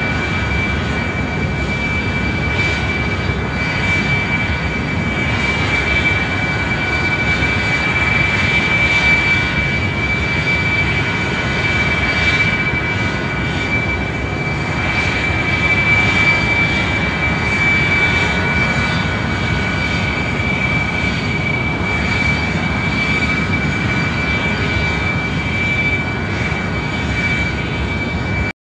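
Electric motor and propeller of a low-flying camera drone, heard from on board: a steady high whine over a rushing noise. It cuts off suddenly near the end.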